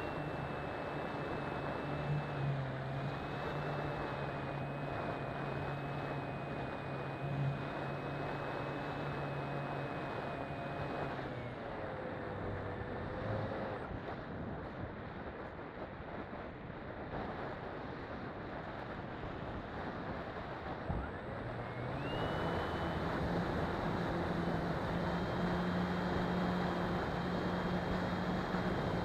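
Onboard sound of an RC model plane's electric motor and propeller running, a steady whine over rushing wind. The whine falls away about a third of the way in as the throttle is cut, leaving only wind noise while the plane glides. It spools back up about two-thirds in and runs steadily until it cuts off at the end.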